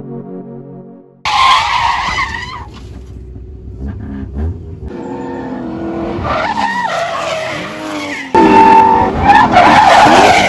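Electronic keyboard music for about a second, then cars drifting: engines revving hard with rising and falling pitch while the rear tyres squeal on the asphalt. The sound jumps abruptly twice where clips are cut together, loudest near the end.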